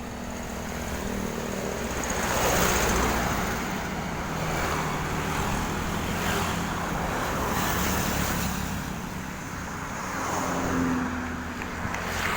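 Road traffic going by close at hand: engine hum and tyre noise of passing vehicles, swelling and fading several times as one after another passes.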